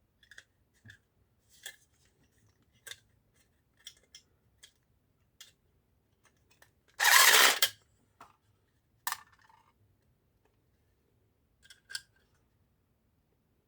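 Small, sharp clicks and taps of laptop parts and a screwdriver being handled, scattered and irregular, with one louder rasp lasting under a second about seven seconds in.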